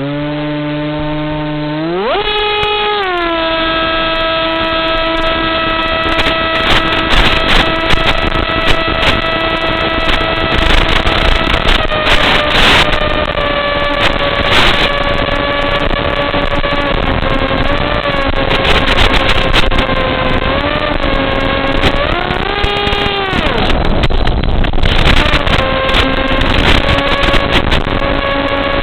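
Radio-controlled model airplane's motor spooling up sharply about two seconds in. It then runs at high throttle as a steady whine, with several brief dips and rises in pitch as the plane flies. Occasional bursts of noise are mixed in.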